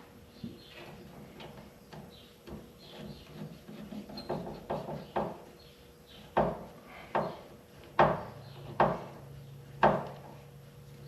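A series of sharp knocks and clanks, about a dozen, from hand work on a car's radiator hose connection. The loudest come about once a second in the second half, each with a short ring.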